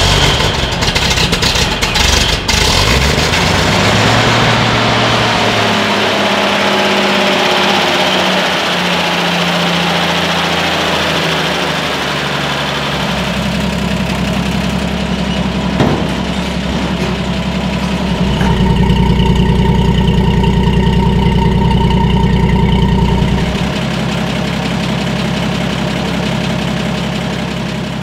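1968 Toyota FJ40 Land Cruiser's F-series inline-six running just after a cold start, its idle speed falling and settling over the first several seconds. A single sharp click comes about halfway through, and the engine runs louder for several seconds past the middle.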